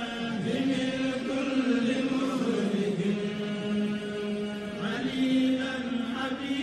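A voice chanting on long, drawn-out notes that glide slowly up and down, with a brief break about five seconds in.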